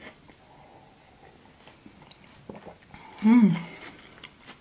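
Soft sips and swallows of tea from a mug, with small mouth clicks. About three seconds in comes a short, loud closed-mouth "mmm" that rises and then falls in pitch.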